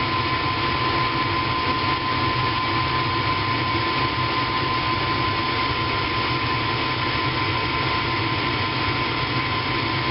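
2007 Whirlpool gas furnace running with its burners lit: a steady rushing noise with a constant high whine through it.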